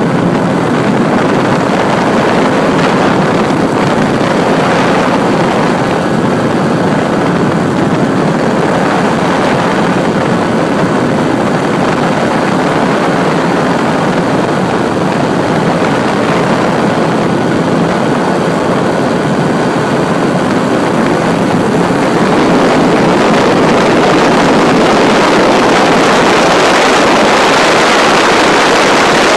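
Steady aircraft engine noise with rushing air, loud and unbroken, growing louder and brighter about 22 seconds in.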